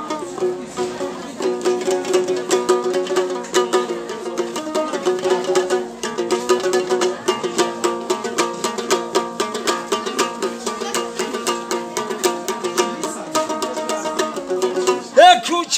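A long-necked Tajik lute played solo, fast plucked and strummed notes over a repeating drone note: an instrumental interlude between sung verses. A man's singing voice comes back in near the end.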